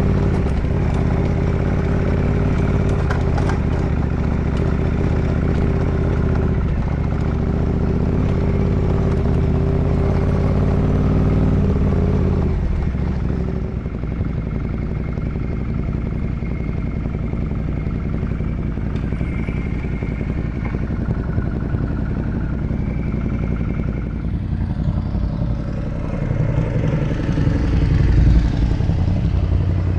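Ducati Multistrada 1200S's V-twin engine running steadily while ridden, heard from on the bike along with road and wind noise. About twelve seconds in, the steady engine note drops away, leaving a rougher mix of engine, clatter and road noise.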